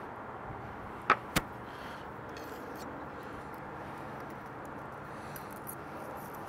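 Knife and fork cutting into a crisp-crusted calzone on a wooden board, with two sharp clicks of the metal utensils about a second in, over steady background noise.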